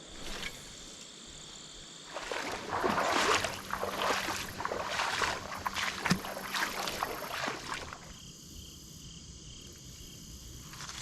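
Water sloshing and splashing, as from wading through shallow creek water, for about six seconds, then easing off. A steady high insect trill runs underneath.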